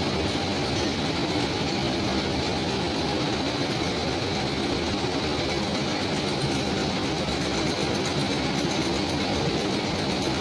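Fabric processing machine running steadily as cloth travels over its rollers: an even, unbroken mechanical noise with a faint high whine.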